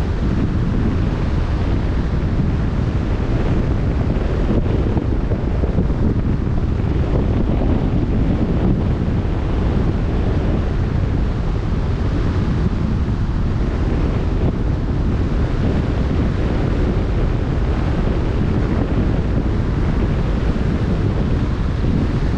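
Steady wind noise on the microphone over the rush of the open sea and the boat's churning wake.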